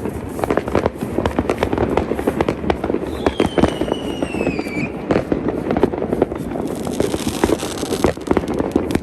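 Fireworks going off in a dense, continuous run of crackles and bangs. A high whistle starts about three seconds in and slides down in pitch for a second and a half.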